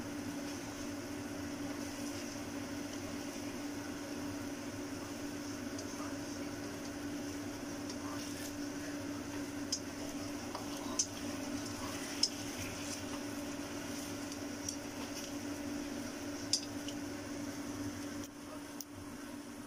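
Chicken wings sizzling in a wok over a steady hum. Several sharp clicks in the second half come as the wings are turned with chopsticks against the pan.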